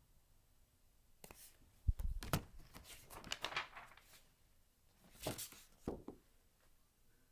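A hardcover picture book being handled: paper rustling and a few light knocks, with a dull thump about two seconds in.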